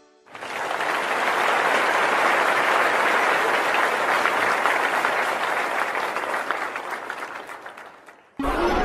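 Crowd applause, holding steady and then fading away over the last couple of seconds before it cuts off.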